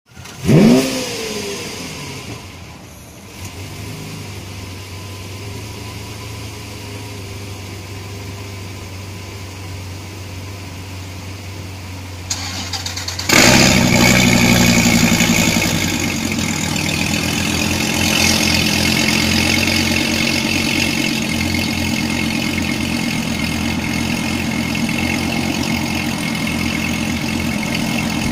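Dodge SRT Viper's 8.4-litre V10 starting: a brief crank and a quick rising flare in revs, settling into a steady idle. About thirteen seconds in the sound suddenly gets louder and stays that way.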